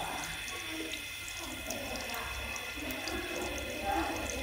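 Water running from a tap into a small sink, splashing over a child's hand as it is rinsed.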